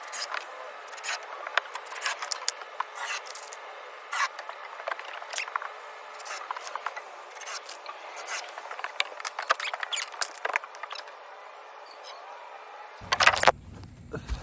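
Wood being worked and handled during shed framing: irregular knocks, clicks and scraping on lumber. Near the end the sound changes abruptly, with a short loud cluster of knocks.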